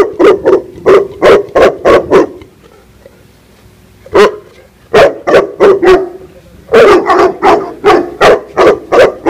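Female Tibetan mastiff barking aggressively in quick runs of about three barks a second. A pause of about two seconds follows the first run, then a single bark, then more runs.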